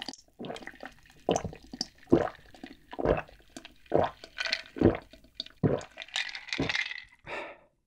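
A person gulping a cold drink from a glass mug held to the lips, with close-miked swallows about once a second.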